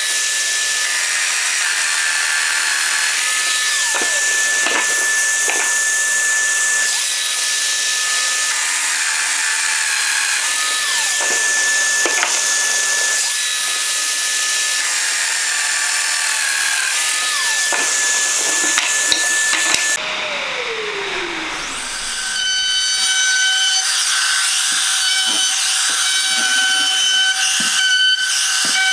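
Festool Domino XL joiner running with a steady whine, plunging into wooden rails again and again, its pitch sagging under load with each cut. About twenty seconds in, it gives way to a compact trim router routing the edges of a wooden frame with a high steady whine.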